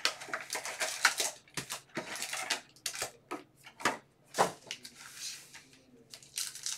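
Foil-wrapped trading card packs and their cardboard box being handled: a quick run of short crinkles, rustles and taps as the box is opened and the packs are taken out and set down on the desk.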